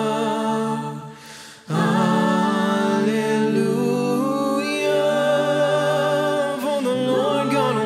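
Church worship music: singing over sustained chords. The music thins out briefly about a second in and comes back in full about a second and a half in.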